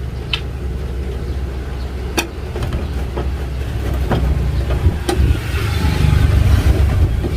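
A steady low rumble like a running engine, with a few sharp clicks, and the rumble grows somewhat louder in the second half.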